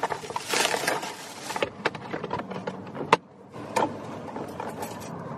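Plastic packaging rustling and crinkling, with scattered clicks and knocks as pedestal-fan parts are unwrapped and handled; the crinkling is densest in the first second or so, and a sharp click comes about three seconds in.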